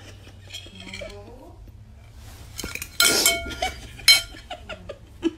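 A plate and fork clattering and clinking, with a loud sudden clash about three seconds in and another about a second later.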